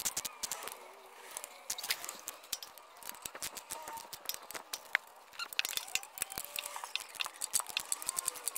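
Ratchet wrench clicking in quick runs while bolts on a generator's plastic air-filter housing base are tightened. The clicks are dense at the start and again through the last few seconds.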